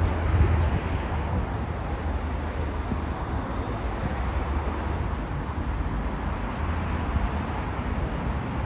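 Steady outdoor street ambience dominated by the low rumble of road traffic running along a city lakeside road.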